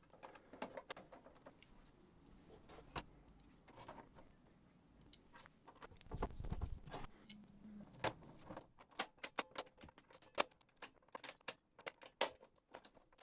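Faint plastic clicks and handling noise as the freshly greased cassette-deck transport-control keys of a JVC RC-680V boombox are pressed to test their movement. A low rumble comes about six seconds in, then a quick run of clicks from about nine seconds on.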